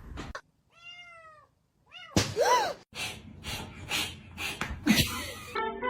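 Cat meowing: two or three short meows that rise and fall in pitch in the first three seconds, followed by several sharp knocks. Plucked guitar music starts right at the end.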